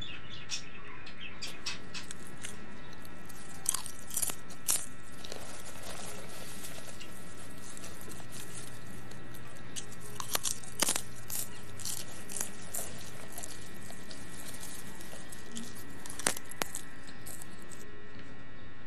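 A person chewing and biting food by hand, with scattered crisp crunches and mouth clicks, the loudest about 4, 10 to 11 and 16 seconds in. A steady faint hum runs underneath.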